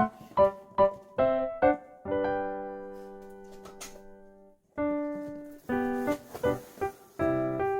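Background music: a bouncy keyboard tune of short, plucked notes, with a long held chord about two seconds in that slowly fades, a brief break, then the short notes pick up again.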